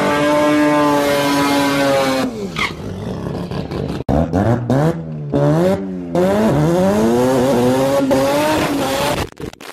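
Drag-race cars doing burnouts: a Toyota Starlet's engine held at high, steady revs while its tyres spin, then dropping off after about two seconds. After a cut, a Mazda RX-7 drag car's engine revs up and down in repeated climbs through its burnout.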